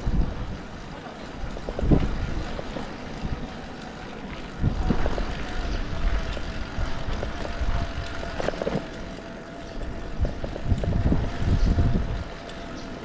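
Wind buffeting the microphone in uneven low gusts. From about the middle on there is a faint steady hum.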